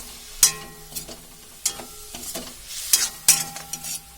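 Spatula stirring spiced cabbage-and-onion stuffing frying in a kadhai. It scrapes and knocks against the pan about once a second, and the pan rings briefly after each knock, over a light sizzle.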